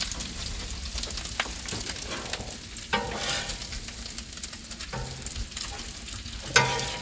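Bacon sizzling and spattering in its grease on a hot Blackstone flat-top griddle: a steady crackle of small pops, broken by a few sharper knocks, the loudest near the end.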